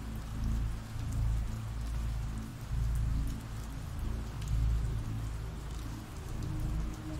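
Steady rain falling, a dense hiss with scattered drop ticks. Underneath it a low rumble swells and eases every second or so.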